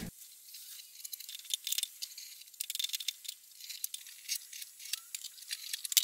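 Faint, irregular scratching and clicking of a metal putty knife scraping stripper-softened old finish off a wood-veneer drawer top; the sound is thin, with no low end.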